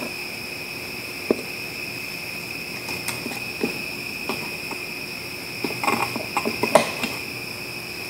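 Small metallic clicks and clinks of a 50-amp 240-volt receptacle, its mounting clips and an old plug being handled and worked on, scattered at first and busier about six seconds in. A steady high-pitched whine sounds behind them.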